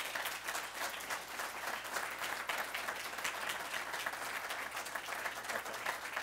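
Audience applauding: many people clapping at once, a steady dense patter of claps.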